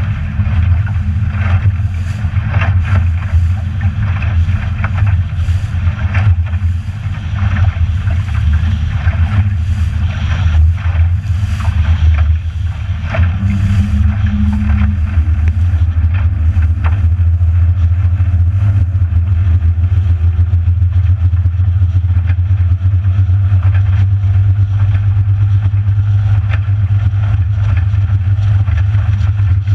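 Motorboat engine running underway, a loud steady low drone, with the hull knocking and splashing through the chop for the first half; the ride smooths out from about halfway.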